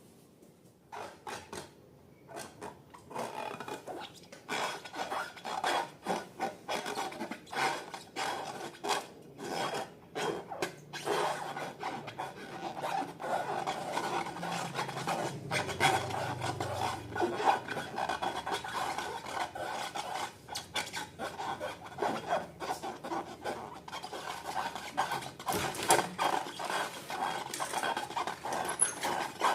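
Slime being stirred and scraped in a bowl: rapid, irregular rasping and rubbing strokes that start about a second in and grow busier and steadier after a few seconds.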